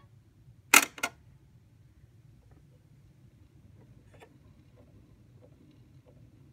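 Wind-up phonograph's start/brake lever clicking twice in quick succession about a second in, then a faint low rumble with scattered light ticks.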